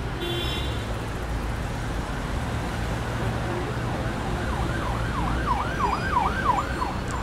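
Emergency-vehicle siren in fast yelp mode, a rapid rising and falling wail about three times a second, starting about four and a half seconds in, over a steady low rumble.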